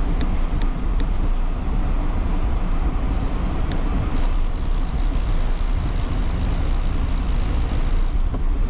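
Wind buffeting the microphone of a handlebar-mounted action camera on a moving bicycle: a steady low rumble, with a few sharp ticks in the first second and one more near the middle.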